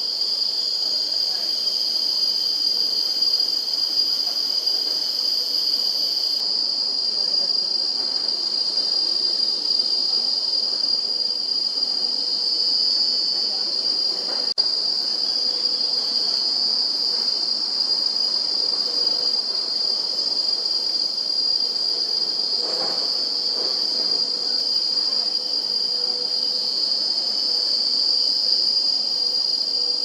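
Steady, high-pitched drone of insects calling in the woodland, unbroken and level throughout.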